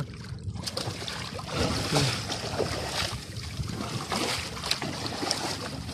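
Sea water sloshing and lapping against a small outrigger canoe, with wind buffeting the microphone and a few light knocks.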